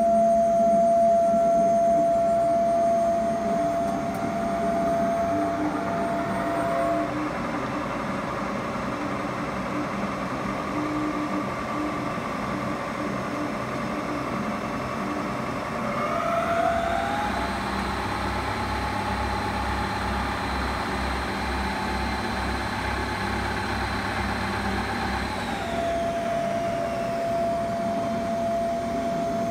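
OMG Zanoletti CNA 250 x 1500 CNC lathe running with a steady mechanical whine from its spindle drive. The whine rises in pitch in two steps, about a quarter and about halfway through, as the spindle speeds up. It falls back to its first pitch near the end as the spindle slows. A low throb runs under the faster stretch.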